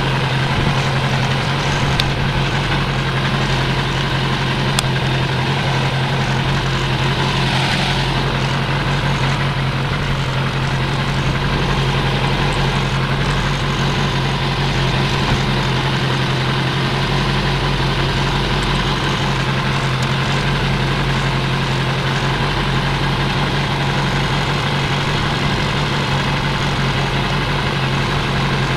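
Suzuki GSX-R600 inline-four motorcycle engine in an off-road buggy, idling steadily with an even, unchanging note.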